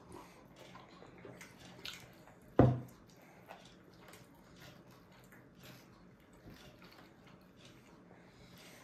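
Babies eating finger food: scattered small smacks, clicks and taps, with one loud knock about two and a half seconds in.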